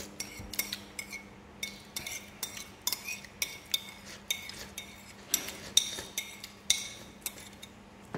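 Metal spoons clinking and tapping against ceramic bowls and plates during a meal: irregular light clinks, two or three a second, each with a short ring.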